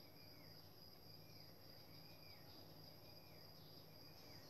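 Near silence: faint room tone with a steady high thin tone and a soft chirp repeating about once a second.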